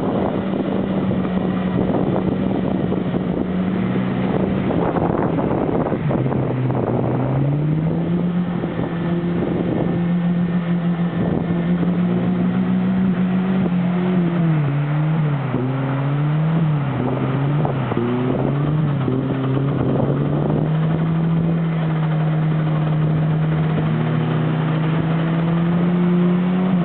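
Off-road 4x4 engine running under load, its pitch rising and falling again and again as the throttle is worked, over a steady rushing noise.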